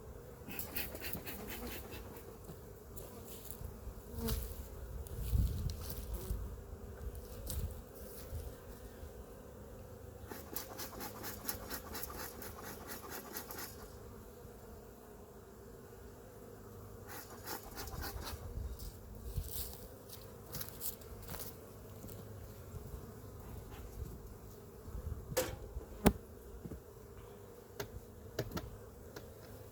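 Honeybees buzzing in a steady hum around an open hive, with scattered knocks and scrapes, one sharp click near the end.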